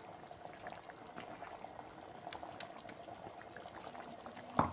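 Tomato-onion curry gravy simmering on the boil in a metal kadhai, a faint steady bubbling with scattered small pops as fried eggs are slid in. A short sharp knock sounds near the end.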